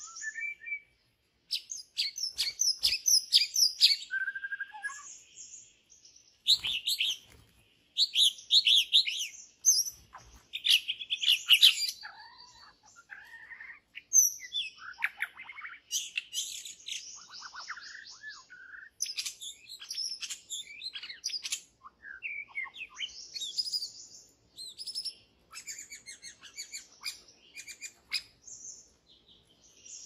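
White-rumped shama song: loud, varied whistled phrases and quick runs of chirps, coming in bursts with short pauses between them.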